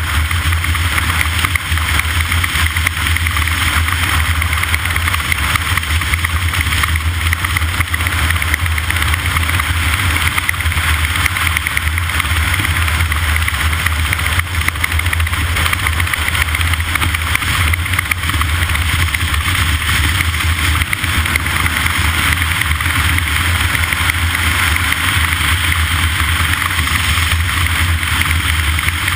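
A steady, loud motor drone with a constant hiss over it, unchanging throughout.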